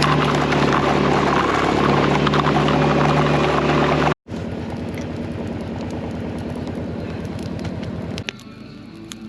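Side-by-side UTV engine running steadily. It cuts off abruptly about four seconds in, then a quieter engine takes over, running with an even pulsing beat, and drops lower again near the end.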